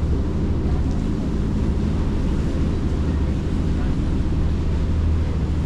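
Sightseeing boat's engine running steadily, a constant low drone, with wind and water noise over it.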